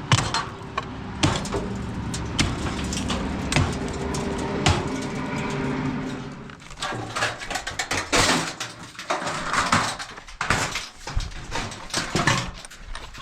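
An engine running steadily, with scattered knocks over it; about six seconds in the engine drops away and a run of irregular knocks and clatters follows, typical of demolition work.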